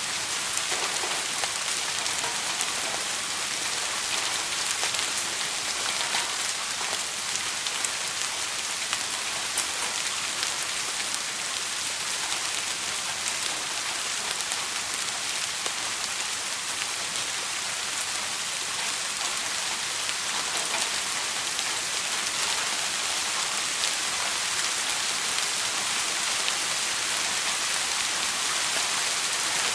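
Steady rain falling and pattering on a surface, an even hiss with scattered faint ticks of single drops.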